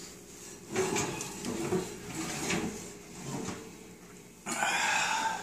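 An electric oven being worked: its door and metal rack clatter and knock as a ceramic baking dish is lifted off the rack with oven mitts, with a longer scraping sound near the end, such as the rack sliding or the door shutting.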